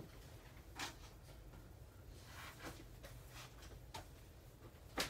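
Faint handling noises: a few light knocks and rustles of things being moved, with a sharper knock near the end, over quiet room tone.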